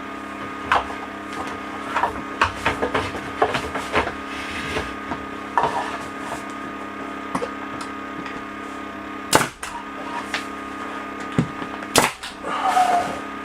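Pneumatic stapler firing staples through thin lauan plywood ceiling panels: two sharp loud shots about three seconds apart, after a run of lighter knocks and clicks from handling the panels. A steady hum runs under it and stops just after the end.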